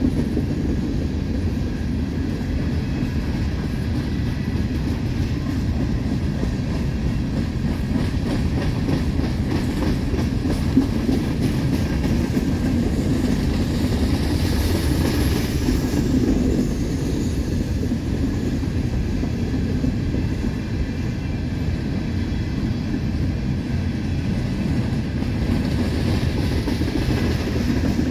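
Empty coal hopper cars of a long freight train rolling past, a steady rumble of steel wheels on the rails.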